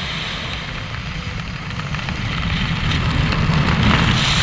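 Wind buffeting the microphone of a skydiver's helmet-mounted camera during a parachute descent: a steady, low rumbling rush that grows louder over the last couple of seconds.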